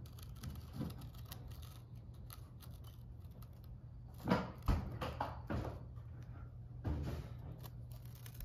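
Plastic squeeze bottle of concrete crack sealer being squeezed, its nozzle dragging along a crack in a concrete slab as the sealer squirts out: small clicks and scrapes, with a few louder crackling scrapes around four to seven seconds in, over a faint steady low hum.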